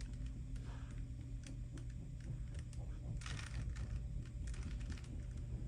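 Rubik's cube being twisted by hand: scattered plastic clicks with a couple of quick runs of turns about three and four and a half seconds in, over a steady low hum.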